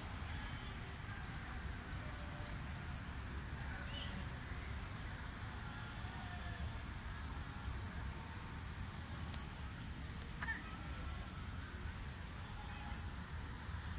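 Insects chirring steadily in high-pitched pulsing trills over a low, even rumble. A bird gives a short chirp about four seconds in and again about ten seconds in.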